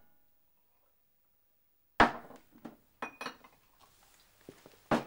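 Complete silence for about two seconds, then a sharp knock followed by a scatter of lighter knocks and clicks.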